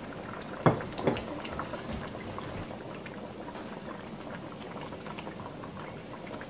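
A pot of Ukazi soup simmering on the stove: steady bubbling with small pops. Two sharp knocks come about a second in.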